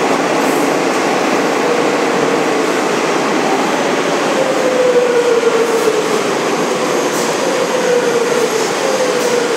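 Madrid Metro train running into the station along the platform and slowing to a stop: a steady rumble of wheels on rails with a whine that slowly falls in pitch.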